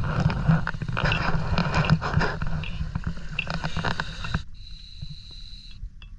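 Scuba gear clicking and rustling against itself and the camera as a diver moves over rocks, over a rumble of wind on the microphone. The noise cuts off abruptly about four and a half seconds in, leaving a faint steady high tone.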